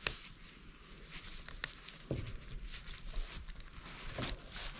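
Hands pulling hard at the insides of a gutted cutthroat trout on a stainless steel table: faint wet handling noise with a few small clicks and rustles.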